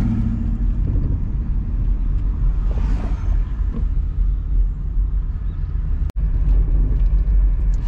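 Driving noise inside the cabin of a moving car: a steady low rumble of engine and road. The sound cuts out for an instant about six seconds in.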